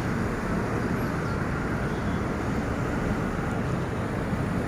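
Steady rumble of a moving vehicle with road noise, even throughout with no distinct events.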